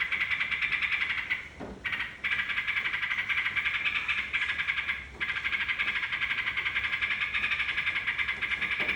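Yellow-vented bulbul (trucukan) song in a bird-keepers' lure recording: a continuous, rapid, chattering trill of about seven pulses a second, with brief breaks about one and a half seconds in and again near five seconds.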